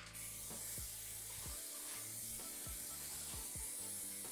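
Aerosol spray can of clear lacquer spraying a coat in one continuous hiss. Faint background music underneath.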